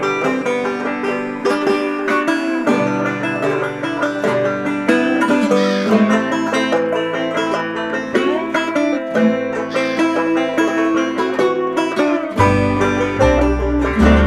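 Background music: an upbeat tune of quick plucked-string picking. A deep bass line comes in near the end.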